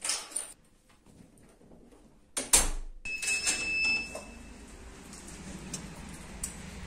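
Household handling noises: a short clatter, then a louder sharp bang about two and a half seconds in. An electronic beep lasting about a second follows, then a low steady hum.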